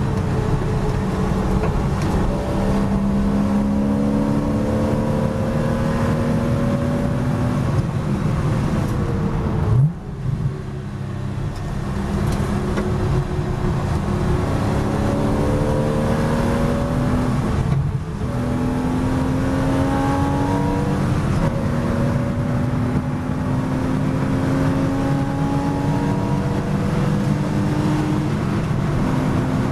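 Porsche Boxster S race car's flat-six engine heard from inside the cockpit, pulling hard with its pitch climbing through each gear. About ten seconds in it falls away under braking, with a quick upward flick in pitch. It then climbs again, with a short break for a gear change about two-thirds of the way through.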